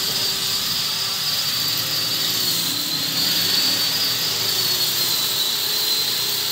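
Electric angle grinder running with a homemade sanding disc (sandpaper glued to an old CD), sanding a block of wood. The motor gives a steady high whine over a hiss, dipping slightly in pitch twice.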